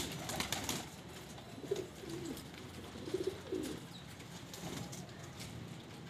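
Domestic pigeons cooing, a few short low coos about two and three seconds in, with light clicks and scratches in between.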